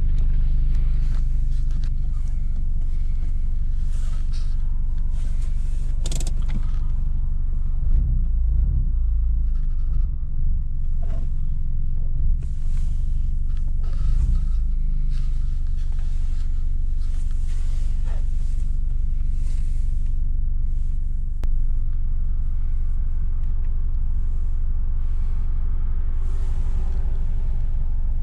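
BMW E46 320i straight-six with a loud modified exhaust, driving: a steady low exhaust drone that swells about eight seconds in and again around fourteen seconds, with scattered short knocks.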